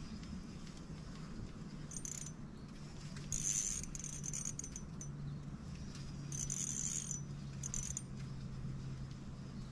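Insects calling from the riverbank vegetation in shrill bursts: four of them, the longest about a second, over a low steady hum.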